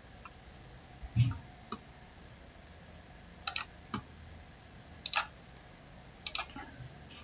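Computer mouse clicking: scattered single and double clicks, about eight in all, with a soft low thump about a second in.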